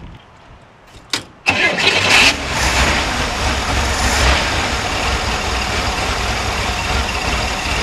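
1966 Corvair's air-cooled flat-six being started: a click about a second in, then the engine catches abruptly and runs on, choppy and rough. The faulty part has been refitted, so this is the intermittent rough running behind the car's stalling.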